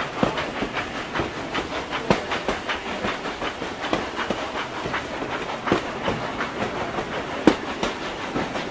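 Märklin model trains running on the layout's track: irregular clicking of small wheels over rail joints and points, a few clicks ringing briefly, over a steady rolling noise.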